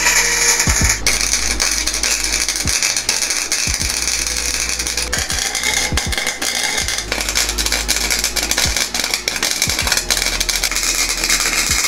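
Wire-feed welder arc crackling and sizzling steadily as steel tubing is welded into a dirt-bike frame.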